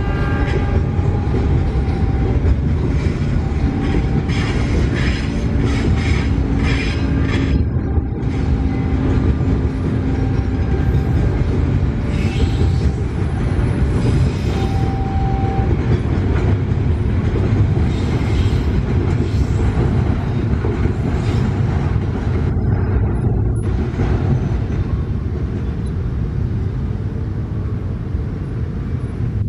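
Container freight train's loaded flat wagons rolling past close by: a steady rumble of steel wheels on rail, with clacks over the rail joints and a few brief wheel squeals.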